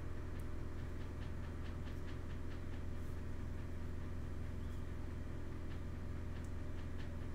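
Steady low electrical hum with faint hiss. A quick run of faint light clicks comes about a second in, roughly five a second for two seconds, and a few single clicks follow later.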